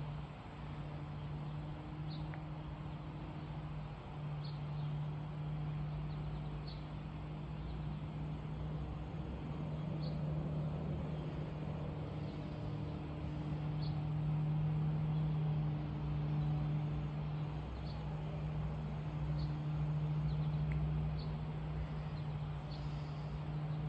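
Outdoor ambience: a steady low hum runs throughout, with faint, short, high chirps every second or two.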